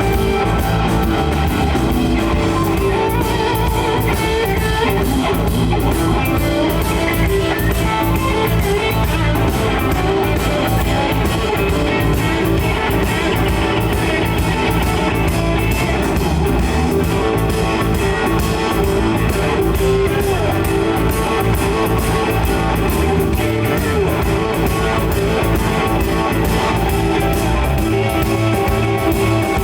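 Blues-rock band playing an instrumental break, with electric guitar over drums and bass.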